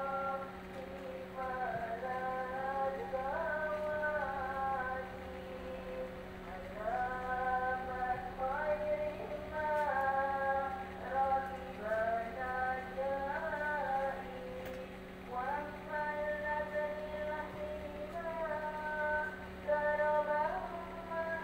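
Music with a woman singing a melody, over a steady low hum.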